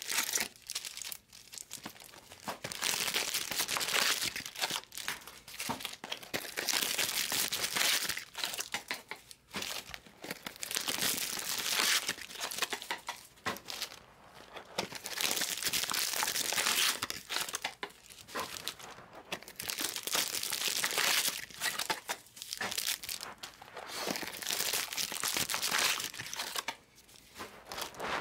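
Crinkling of foil trading-card packs and plastic box wrap as the boxes are unwrapped and the packs handled and stacked. It comes in repeated bursts of a second or two, with short quieter gaps between.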